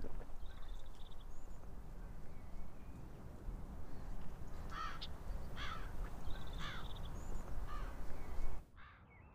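Crows cawing over a low outdoor rumble, a run of about four harsh caws roughly a second apart starting about halfway through. The outdoor sound cuts off suddenly just before the end.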